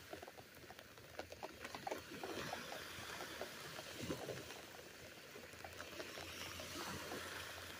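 Light rain pattering on a fabric beach umbrella: scattered drop taps over a soft hiss.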